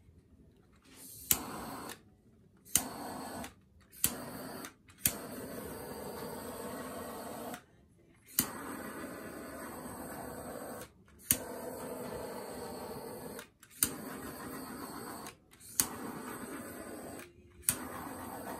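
Handheld butane torch lit about nine times over a wet acrylic pour, each time a sharp ignition click followed by a steady hiss of flame lasting one to two and a half seconds, which stops abruptly.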